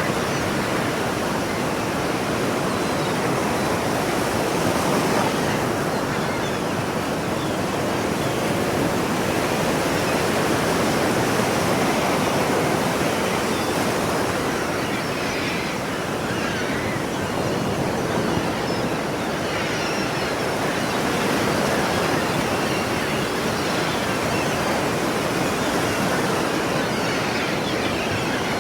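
Ocean surf washing onto a shore: a continuous rushing wash that swells gently every few seconds, with no single breaking crash standing out.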